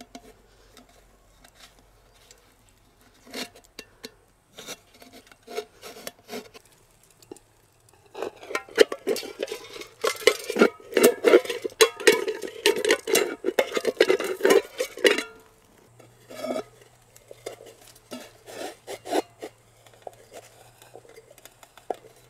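A pocket knife blade cutting and scraping through the thin sheet-metal wall of a large tin can. Scattered clicks and scrapes give way, about eight seconds in, to a dense run of rasping, scraping strokes with a metallic ring lasting several seconds; after that come lighter taps and scrapes.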